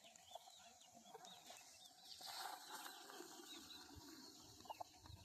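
Near silence: faint farmyard ambience with soft, repeated bird chirps.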